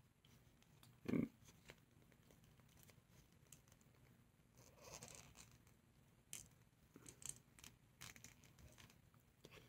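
Near silence with faint handling of a plastic action figure: scattered small clicks and rubbing. There is one brief, louder soft thump about a second in.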